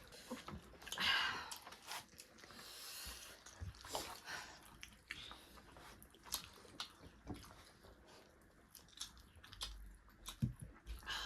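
Close-up chewing and crunching of pani puri: scattered crisp bites and wet mouth sounds, with a louder crunch about a second in.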